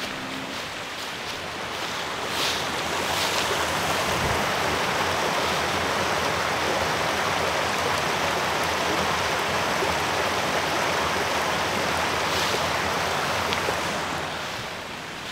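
Rushing water of a stream: a steady noise that swells over the first couple of seconds and fades near the end. A few footsteps sound on the trail.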